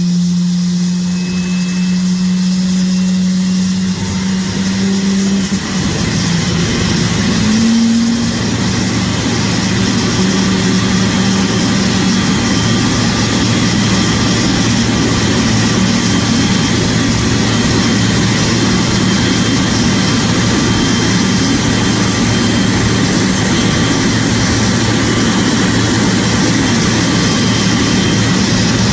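Boeing 777's GE90 turbofan engine running: a steady low hum at first, then about six seconds in a broad rushing roar with a steady whine builds and holds.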